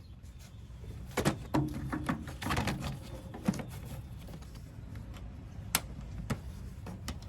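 Scattered clicks and knocks of the retaining clips being pushed onto the ends of the hood lift supports: a cluster of handling knocks in the first few seconds, then a few single sharp clicks.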